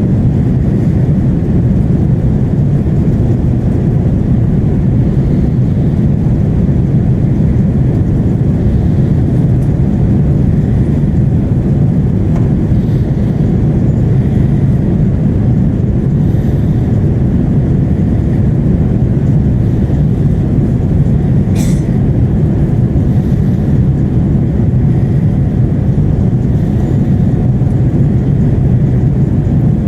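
Steady roar of engine and airflow noise inside the cabin of an Airbus A330-300 airliner on its descent to land, deep and even. A single short click sounds about two-thirds of the way through.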